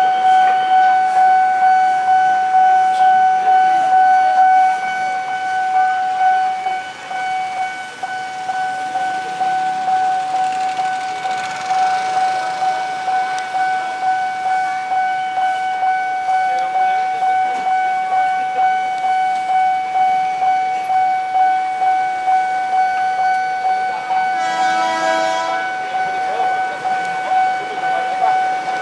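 Level-crossing warning bell ringing steadily, about two strikes a second. Late on, a passing electric commuter train sounds its horn once, briefly.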